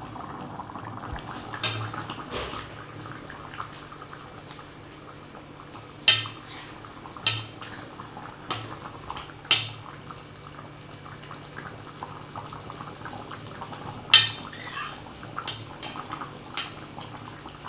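Metal ladle stirring chicken curry in an iron kadai: irregular sharp clinks and scrapes of the ladle against the pan, the loudest about 14 seconds in, over a faint steady simmer.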